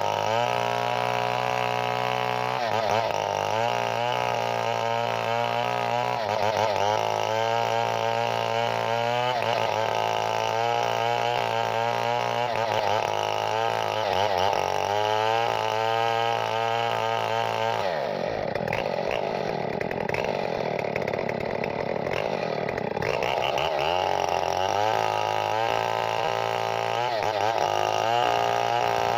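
Two-stroke chainsaw engine running at high revs, its pitch rising and falling as the throttle and the load of the cut change. For several seconds past the middle the even note breaks up into a rougher sound.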